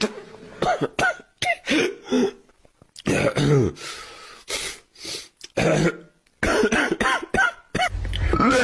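People coughing over and over, with throat clearing: a run of short, sharp coughs with brief gaps, growing denser and almost continuous from about six and a half seconds in.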